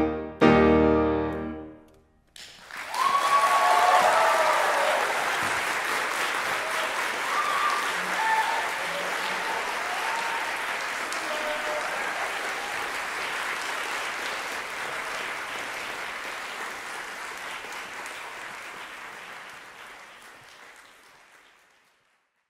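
The last chords of a two-piano, eight-hand arrangement ring out and stop, and after a short pause an audience applauds, with a few cheers just after the clapping starts. The applause fades out near the end.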